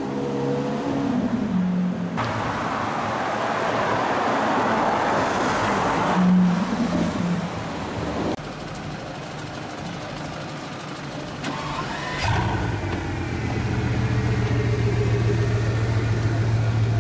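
Car engines and traffic on a rain-soaked street. An engine pulls away first, then comes several seconds of loud hissing road noise. A quieter stretch follows, and a steady low engine hum fills the last few seconds.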